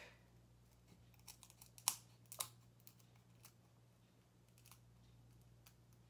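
Small spring-loaded scissors cutting through a thin wooden craft stick: a scatter of faint, crisp snips and cracks of the wood, the sharpest about two seconds in.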